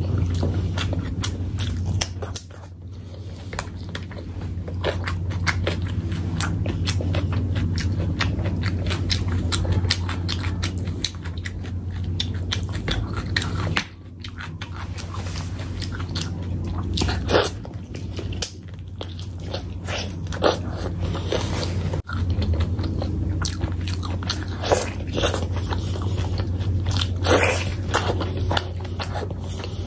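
Close-miked chewing and wet mouth sounds of a person eating rice and curry by hand, a dense run of smacks and clicks with a few louder sharp snaps. A steady low hum runs underneath.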